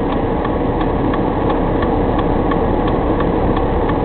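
Inside a Chrysler New Yorker's cabin: the engine and the car run with a steady hum, under a rapid, even ticking of about three clicks a second, the sound of the turn-signal flasher.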